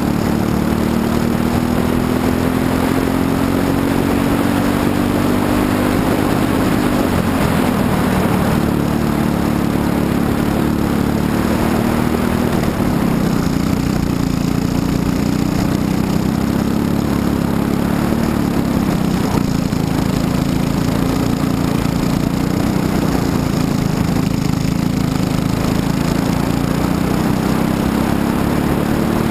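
Briggs & Stratton LO206 single-cylinder four-stroke kart engine at racing speed, heard from the kart itself. Its pitch climbs along the straights and drops off into the corners, about seven seconds in and again about thirteen seconds in, then climbs again near the end.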